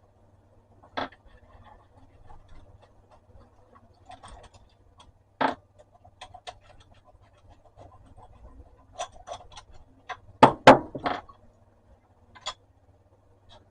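Electric hand planer's replacement blade and its clamp being handled and worked into the cutter drum: scattered small clicks and knocks, with a quick cluster of louder knocks about ten and a half seconds in.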